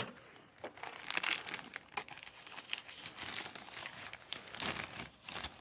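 Clear plastic packaging bag crinkling and rustling in irregular bursts, with sharp crackles, as it is opened and a paddleball paddle is pulled out of it.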